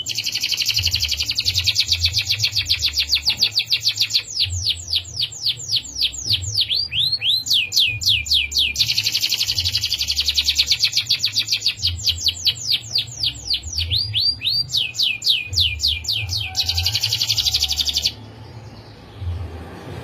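Domestic canary singing a long rolling song: fast trills of repeated notes, one run flowing into the next as the speed changes, with the song stopping about two seconds before the end. A low rumble runs underneath.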